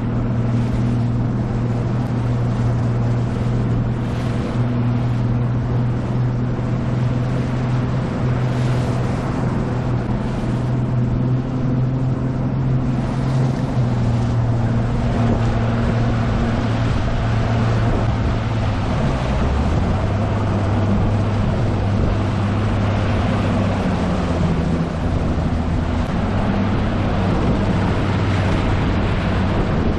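2018 Nitro Z20 bass boat's outboard motor running under way through waves, its steady note stepping down a little about two-thirds of the way through. Wind and water spray rush over the deck-level microphone.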